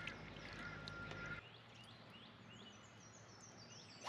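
Birds calling outdoors: a run of short, quick chirps repeated several times a second, some in stepped descending series. At the start a steady thin whine over a noisy background cuts off abruptly about a second and a half in.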